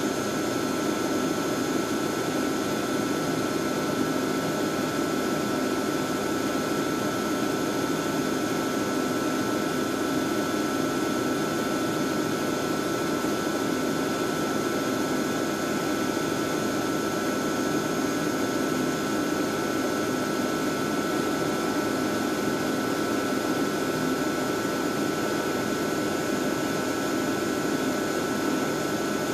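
Screen PlateRite 8100 (PT-R8100) platesetter running while it images plates: a constant, even machine whir with several steady tones from its spinning drum.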